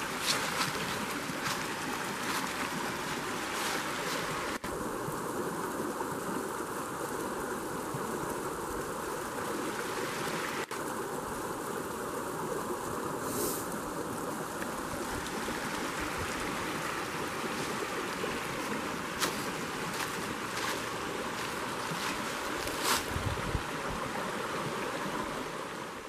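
A small brook running over rocks, a steady rush of water.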